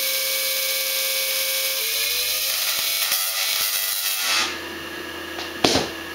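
Tesla coil with a new topload firing: a loud, harsh, steady buzz of its sparks that stops about four seconds in, leaving a low steady hum, with a few sharp clicks near the end.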